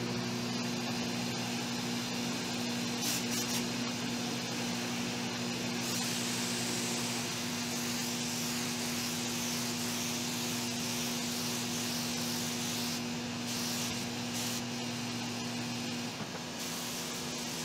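Spray gun hissing as it lays a coat of shellac sealer on a tabletop: a short burst about three seconds in, one long pass from about six to thirteen seconds, then a few broken bursts. Under it runs a steady motor hum that stops near the end.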